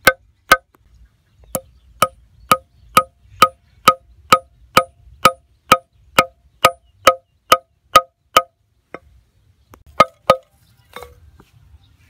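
Steel nail being hammered into a wooden plank with the back of a hatchet head: sharp, ringing metal-on-metal blows at about two a second, with a brief pause about a second in, then two last blows after a short gap near the end.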